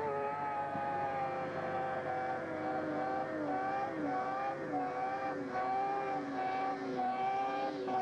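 Two-stroke snowmobile engine held at high revs as the sled skims across open water. Its pitch climbs just before and stays high, dipping briefly a few times in the middle.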